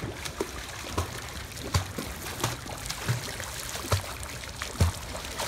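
Splashing of a child's kicks and arm strokes as he swims face-down across a swimming pool, a sharp splash every second or less over a steady wash of water.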